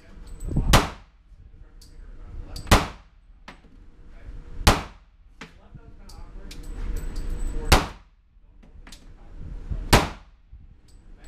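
Springfield XD40 Mod.2 .40 S&W pistol firing five single shots, spaced about two seconds apart. Each shot echoes briefly off the indoor range's walls.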